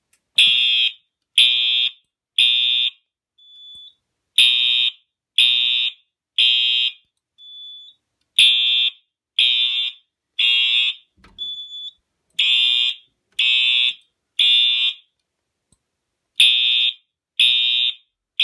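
Fire alarm horn sounding the temporal-three (code 3) evacuation pattern: three high-pitched blasts about a second apart, then a pause, repeated five times. The system has gone into alarm from a System Sensor i3 smoke detector set off with a test tool. A fainter short beep falls in the pauses.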